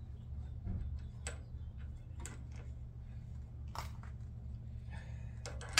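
A few scattered light clicks and taps of parts being fitted back into a pickup's front end by hand, with a sharper click near the end, over a steady low hum.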